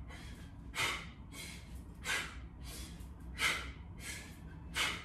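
A man's sharp, forceful breaths out, one with each double-arm kettlebell swing, about every 1.3 seconds, with softer breaths in between.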